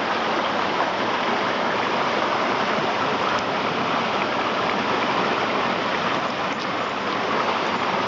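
Fast-running mountain creek flowing over rocks: a steady, unbroken rush of water.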